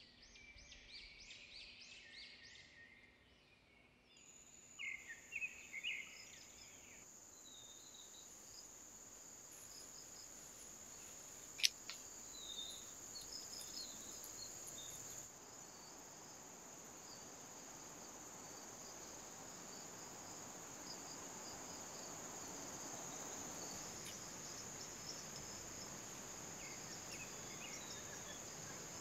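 Faint forest insects, crickets or cicadas, giving a steady high-pitched drone that comes in abruptly about four seconds in. A few chirping calls are heard in the first seconds, and there is one sharp click near the middle.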